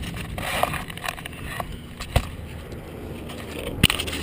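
Wind noise on a GoPro's microphone with scattered clicks and knocks as the camera is handled and its mount tilted, a sharper click about two seconds in and another near the end.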